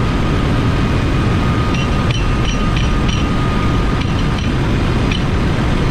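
Loud, steady drone of a ship's engine-room machinery, with a few light metallic clinks of spindle parts and tools being handled.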